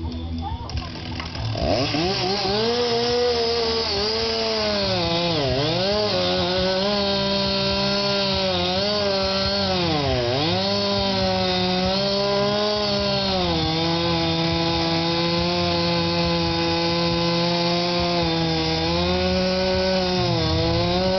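Two-stroke chainsaw revving up to high speed about a second and a half in, then running at full throttle while cutting into wood, its engine note dipping sharply twice before holding steady.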